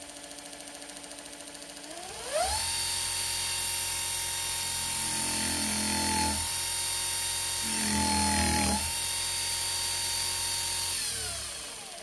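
Baldor brushed DC servo motor spinning freely on a bench DC supply, just after its commutator was rebuilt and carbon brushes replaced. Its whine rises in pitch about two seconds in as the voltage is raised to about 110 V, and holds steady and high. Twice in the middle a hand grips the spinning shaft, adding a rougher rubbing sound, before the pitch falls near the end as the voltage is turned down.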